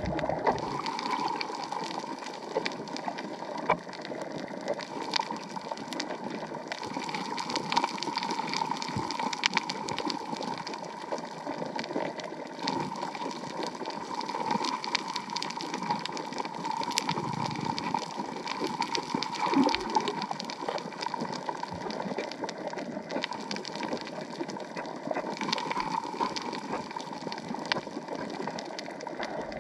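Underwater reef ambience: a steady watery hiss peppered with many sharp crackling clicks.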